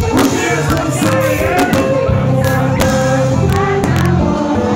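Live konpa band playing, with bass guitar, keyboard, drums and hand percussion, and a singer's voice over the music.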